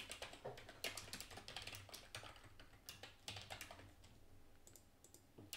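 Computer keyboard typing: a quick run of faint keystrokes that thins out after about three and a half seconds.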